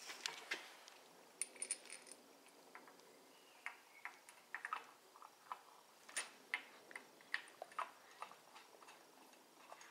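Faint, irregular light clicks and taps, a dozen or more scattered through, the sharpest ones coming about six to seven and a half seconds in.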